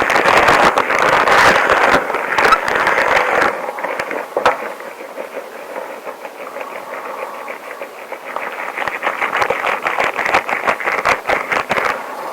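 Long rubber gloves rubbing and squeaking against each other in a dense crinkling friction noise. It is busiest in the first few seconds and again near the end, softer in between.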